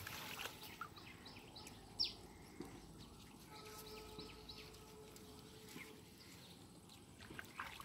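Faint outdoor ambience with birds chirping, many short quick chirps scattered through, and a sharp click about two seconds in.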